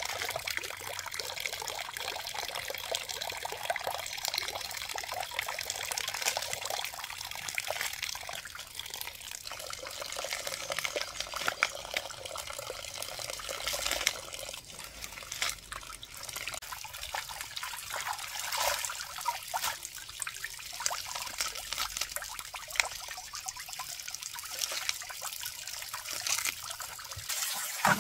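Water trickling and splashing as leafy wild greens are washed by hand in a wok of water, with small irregular splashes and leaf rustles over a steady trickle. Right at the end a basin of water is tipped out with a louder splash.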